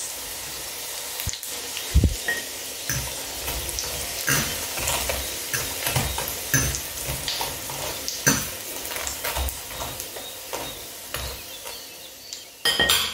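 Chicken-breast patties shallow-frying in hot oil in a stainless steel pan, sizzling steadily. A fork clicks and scrapes against the pan as the patties are turned, with a louder clatter near the end.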